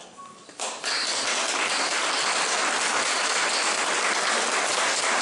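Audience applauding: the clapping starts suddenly just under a second in and holds steady.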